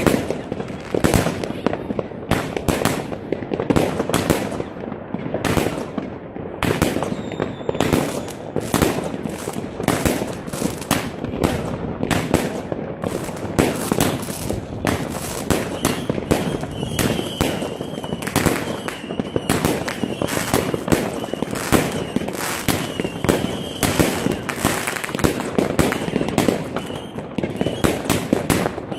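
Fireworks and firecrackers going off all around in a dense, continuous barrage of overlapping bangs and crackles, several every second.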